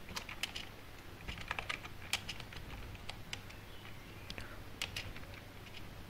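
Typing on a computer keyboard: irregular runs of key clicks, a few keys at a time with short pauses between, over a faint steady low hum.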